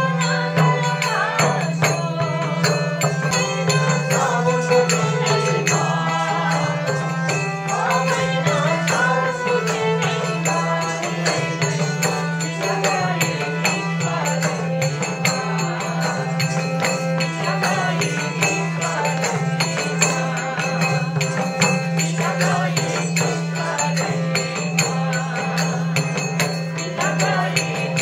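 Traditional folk singing with a hand drum and percussion keeping a steady beat, played live for dancers, over a constant low drone.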